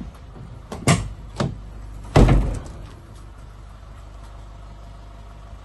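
Two sharp latch clicks, then a heavy slam about two seconds in as a door on a Toyota Hilux double-cab pickup is shut. A steady low hum follows.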